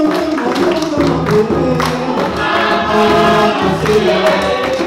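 Choir singing gospel music with instrumental accompaniment, with drum hits in the first couple of seconds.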